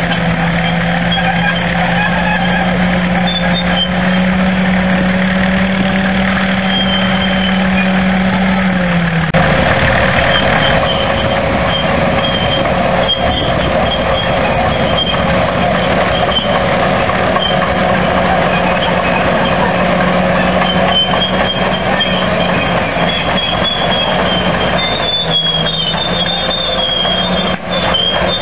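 Caterpillar crawler bulldozer's diesel engine running steadily under load as it pushes dirt with its blade. The engine note drops sharply about nine seconds in, then settles back. Intermittent high squeaks sound over it.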